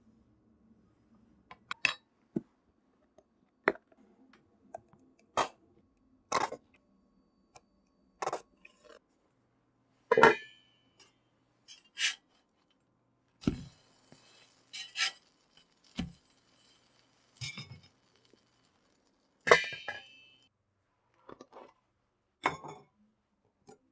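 Kitchen utensils clinking and knocking against glass and ceramic dishware: a scattered string of separate sharp strikes with quiet between them, a few ringing briefly.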